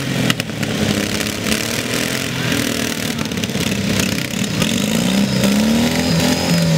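Several racing riding lawn mowers' small engines running together, their overlapping pitches rising and falling as they rev. One engine climbs and drops clearly near the end.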